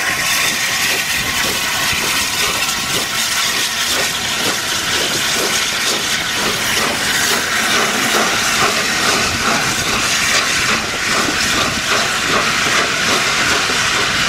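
Steam locomotive 71000 Duke of Gloucester, a BR Standard Class 8 three-cylinder Pacific, working a train slowly past with loud hissing steam over a steady beat of exhaust chuffs.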